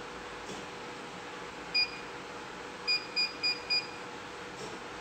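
Keypad beeps from an Atlantis tea and coffee vending machine as its buttons are pressed to step up a program setting: one short beep about two seconds in, then four quick beeps about a third of a second apart.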